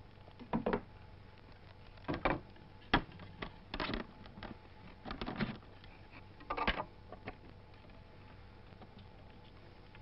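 Scattered soft knocks, clicks and rustles of someone handling a wooden door and shifting about, about ten in all, the sharpest knock about three seconds in, over a faint steady hum.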